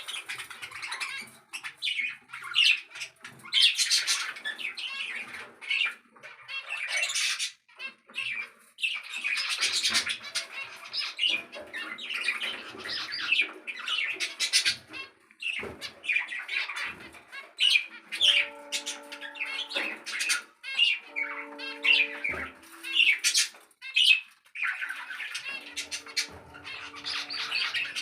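A flock of caged pet birds chattering and squawking continuously, many overlapping calls.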